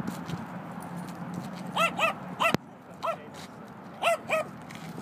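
A dog barking: six short, high barks, mostly in pairs, starting a little under two seconds in. A single sharp click falls among the barks about halfway through.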